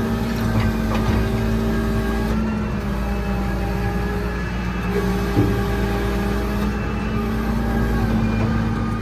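Engine of farm machinery running steadily at a constant speed, holding one pitch throughout.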